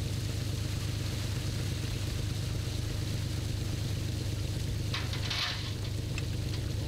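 Fishing boat's engine running steadily with a low hum, over a constant hiss. A brief rush of noise about five seconds in.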